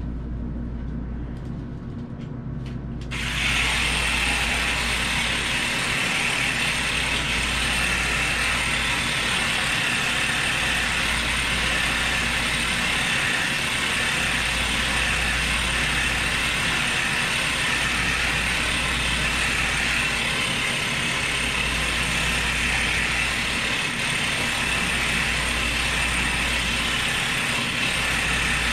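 A motorised device starts about three seconds in and runs steadily, with a low throb that comes and goes in spells of a second or two.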